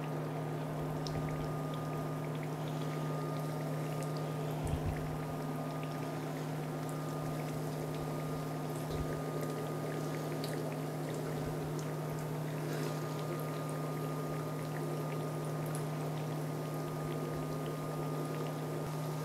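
Petulla, triangles of curd dough, frying in shallow sunflower oil in a nonstick pan: the oil is bubbling and sizzling with scattered small crackles. A steady low hum runs underneath, and there are a couple of soft knocks as pieces are handled.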